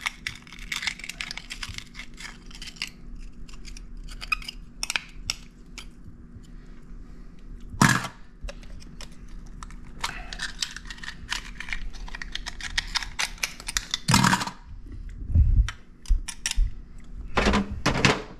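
An oyster shucker prying the top shells off oysters already steamed open in the oven: shell clicking and scraping against shell and metal, with a few louder knocks.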